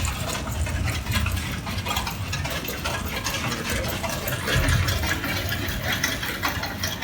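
Sugar beet piler machinery running: conveyor belts and the rattling shaker carrying beets, over a truck engine idling, with a heavier rumble swelling briefly about four and a half seconds in.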